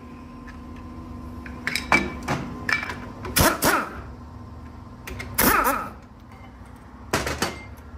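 Clatter of tools and engine parts being handled, in about six short bursts with a scrape or two, over a steady hum.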